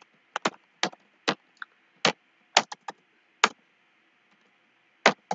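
Computer keyboard being typed on: short clicking keystrokes in irregular clusters, with a pause of about a second and a half before a few more keystrokes near the end.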